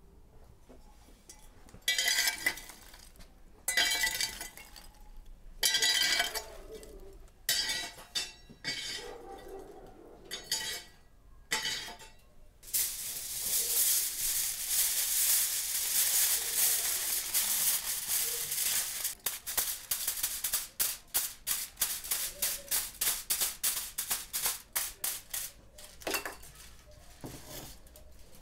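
Aluminium foil rustling and crinkling as it is spread over and folded around a tray: a long continuous rustle about halfway through, then quick crinkles as the edges are pressed down.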